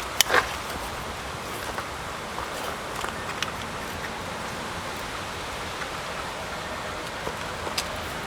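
Two sharp metal clicks just after the start as jumper cables are connected to a removed car starter motor, then a few faint ticks over a steady background hiss.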